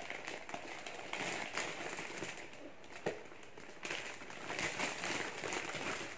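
Plastic packaging crinkling and rustling in uneven spells as a ring light wrapped in a clear plastic bag is handled and unwrapped, with a single sharp click about three seconds in.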